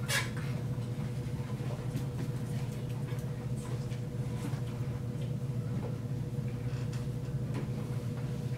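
Classroom room tone: a steady low hum with a faint steady tone above it, and scattered small clicks and rustles, one sharper click right at the start.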